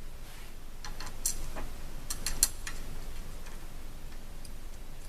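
Light metallic clicks and taps, a cluster of them between about one and three seconds in with one sharper click, and a few fainter ones later: screws and a metal adapter plate being handled and threaded in by hand.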